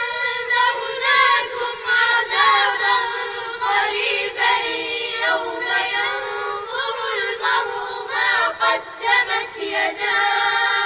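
A child's voice reciting the Qur'an in a melodic chant, with long held notes and ornamented turns.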